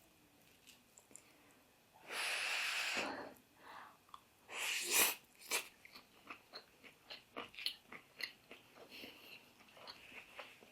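Someone eating close to the microphone: a breathy rush about two seconds in, then a bite and a run of crunchy chewing sounds, about two a second.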